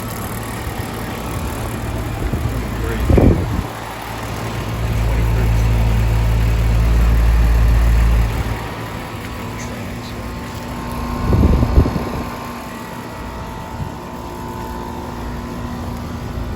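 Outdoor heat pump and air-conditioner condensing units running in cooling mode: a steady fan-and-compressor hum. There is a heavy low rumble from about four and a half to eight seconds in, and a brief loud bump twice.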